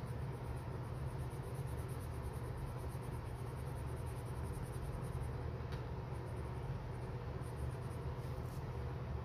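Watercolour colouring pencil shading on paper: a soft, steady scratching of the lead over a small swatch, over a constant low hum. The pencil drags on the paper, which she thinks may be something in the lead or its tip.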